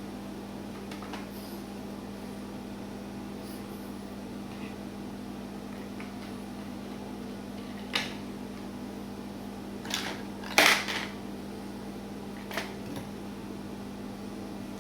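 Steady low hum with a few sharp clicks and clacks of hard objects being handled: one about eight seconds in, a louder cluster about ten to eleven seconds in, and a last one near the end.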